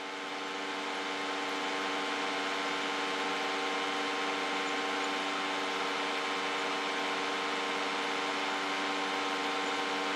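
An electric commercial steam cleaner running steadily: a constant machine hum with several steady tones over an even hiss.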